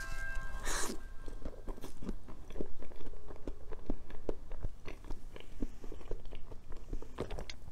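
Close-up eating sounds: biting into and chewing a soft matcha dessert, a run of small, irregular, moist mouth clicks with a louder rustling burst about a second in.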